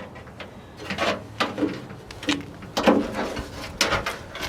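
Several short knocks and clanks from hands working on the door latch hardware inside a 1965 Ford Falcon's steel door. The loudest knocks come about three seconds in and again shortly before four seconds.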